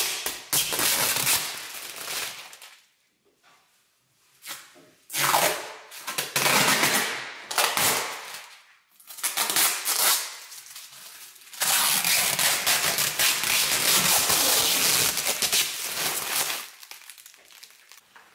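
Clear protective plastic film being peeled off a new kitchen worktop, crackling and crinkling in several pulls with short quiet pauses between, the longest pull lasting about five seconds near the end.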